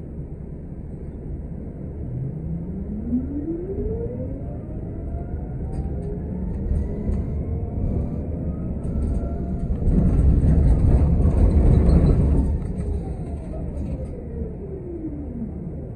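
City bus ride heard from inside: the drivetrain whine rises steadily in pitch over several seconds as the bus speeds up, and the running noise swells loudest for a couple of seconds. The whine then falls in pitch as the bus slows.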